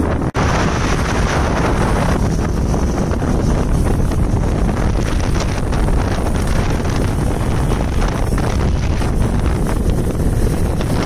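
Wind buffeting the microphone of a moving motorcycle, over the steady running of motorcycle engines. The sound drops out for an instant just after the start.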